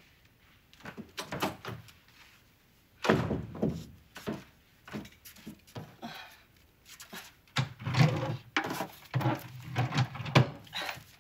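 A room door opening, then knocks and thunks of things being handled on a wooden dresser and a drawer being pulled open.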